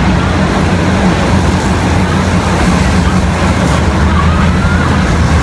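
Steady rumble of a moving vehicle with wind and road or rail noise, a continuous low engine hum beneath it.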